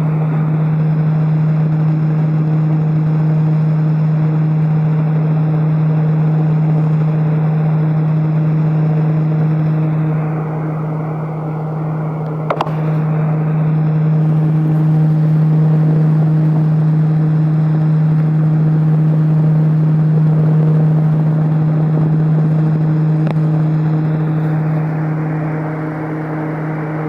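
Large electric fan running at maximum speed: a steady rush of air over a strong low hum. There is a single short click about halfway through.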